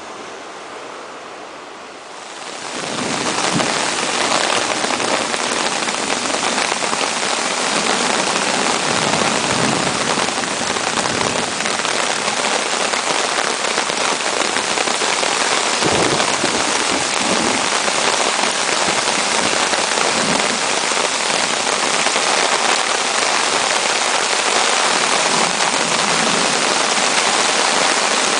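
Heavy thunderstorm rain pouring down, a loud steady hiss that starts suddenly about two and a half seconds in, after a softer wash of surf.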